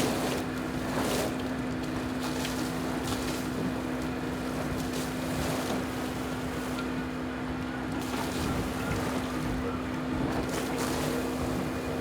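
Onboard a racing sailboat under way: wind and water rush past the hull in an even wash, with brief louder gusts or spray every few seconds. Under it runs a steady, unchanging hum.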